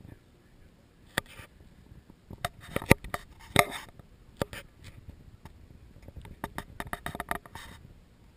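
Camera handling noise: a string of irregular sharp clicks and clattering knocks as the camera is moved and set down, loudest around the middle.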